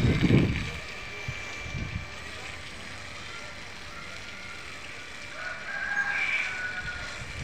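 A rooster crowing, one drawn-out call that peaks about six seconds in, over a steady faint hiss. Wind buffets the microphone in the first second.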